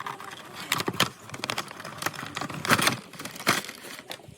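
Hands handling the model car's packaging: irregular clicks, taps and crinkling of cardboard and plastic, loudest a little under three seconds in.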